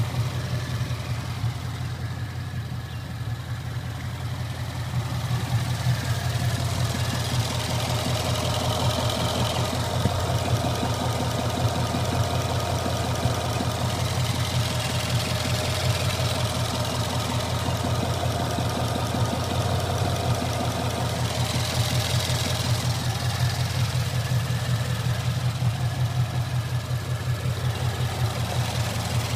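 Ford Mustang GT's V8 engine running steadily, with a knocking noise in it that the owner is trying to track down.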